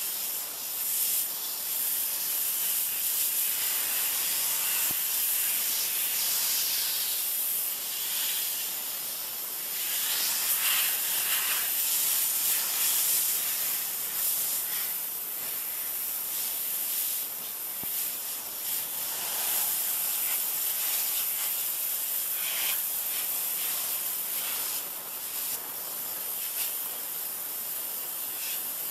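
Water jet from a 3000 psi pressure washer spraying against plastic lawn chairs. It makes a continuous hiss that swells and fades as it goes.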